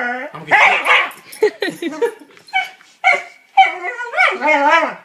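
Dog barking and howling in a string of about six short, wavering yowls, a guarding protest at someone trying to touch its pregnant owner's belly.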